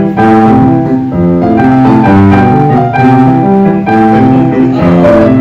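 Grand piano being played: a steady run of chords and melody notes, each note held and ringing into the next.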